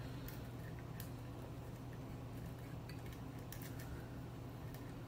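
Faint light clicks and ticks of wires and small metal parts being handled as connections are tucked into the opened chassis of a Northern Electric 500 telephone, over a steady low hum.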